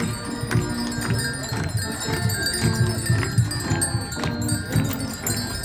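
Pair of draught horses pulling a parade wagon at a walk: hooves clopping on the asphalt road, with the bells and metal fittings of their harness jingling and ringing.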